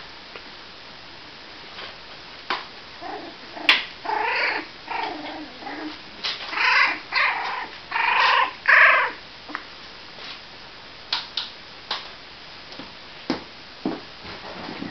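26-day-old Cavalier King Charles spaniel puppies giving a run of high, squeaky whines and squeals for several seconds, loudest a little past the middle. A few short sharp clicks follow.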